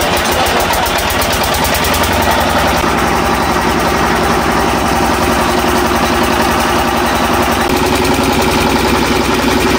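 Stationary single-cylinder diesel engine running steadily with a fast, even firing beat, driving a sugarcane juice crusher as cane is fed through its rollers.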